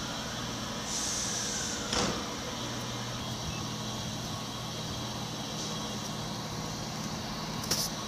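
Electric loco-hauled passenger train with a Mk3 Driving Van Trailer moving through a station: a steady electric hum with a constant hiss, a single knock about two seconds in and a few sharp clicks near the end.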